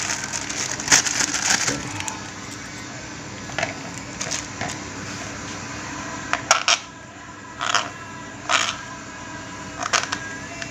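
A plastic bag crinkling for about the first two seconds as bait dough is pressed in it, then a metal spoon scraping and clicking against a plastic bowl while sticky bait paste is scooped out, with about seven sharp clicks.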